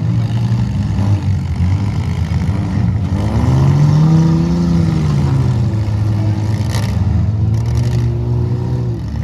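Demolition derby car engines running together, one revving up and back down a few seconds in. A single short knock sounds about seven seconds in.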